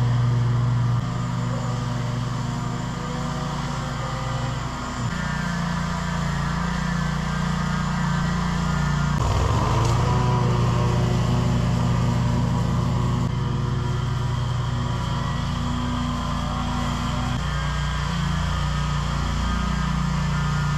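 Engine of a Scag V-Ride II stand-on mower running steadily while mowing, its pitch stepping up and down several times. About halfway through it passes close by, with a brief fall and rise in pitch.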